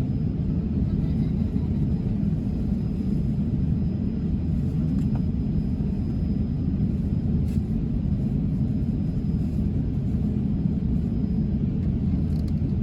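Steady low rumble of an airliner's engines and airflow heard inside the passenger cabin, holding level without rising or falling.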